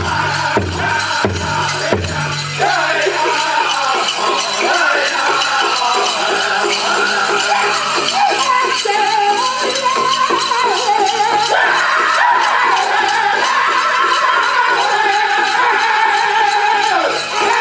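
Powwow drum group singing over a big drum beaten in a steady pulse, with the dancers' ankle bells jingling. The deep drum strokes drop out about two and a half seconds in, while the singing and jingling carry on.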